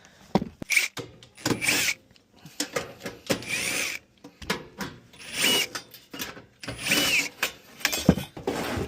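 Cordless power drill/driver running in about six short trigger bursts, each spinning up and back down, with clicks and knocks of handling between them.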